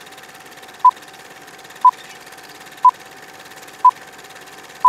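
Film-leader countdown sound effect: a short beep of the same pitch once a second, five times, over a steady film-style hiss and a faint constant tone.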